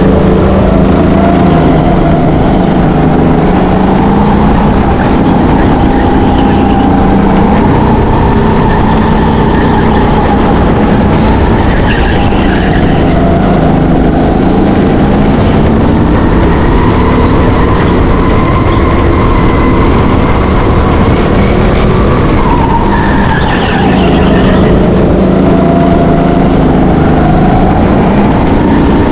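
Go-kart at racing pace heard from onboard. The motor drops in pitch into the corners and climbs again on the straights, with a few short tyre squeals through the corners.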